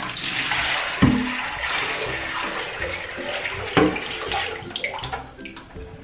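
Water pouring and splashing out of a tipped-up humidifier base into a bathroom sink, tailing off near the end, with two sharp knocks, one about a second in and one just before four seconds.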